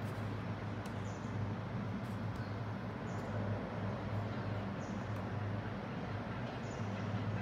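Steady background hiss with a low hum, and a few faint touchpad clicks, about one every two seconds.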